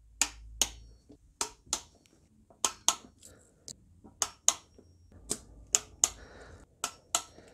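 Torque wrench clicking as intake manifold bolts are tightened to 9 foot-pounds: about fourteen sharp clicks at uneven intervals, often in pairs.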